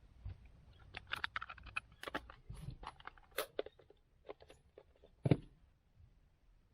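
Irregular clicks, taps and crunches of small hand tools and electronic parts being handled at a workbench, with one louder knock about five seconds in.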